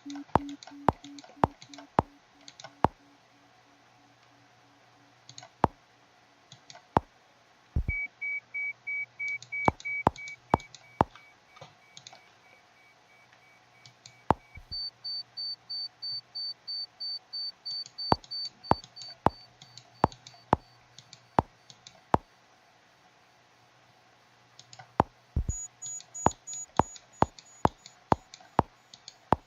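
Hearing-test app playing its pulsed test tones: a low beep series fading out, then trains of beeps at about three to four a second that step up in pitch, each train growing fainter. Many sharp clicks sound in between.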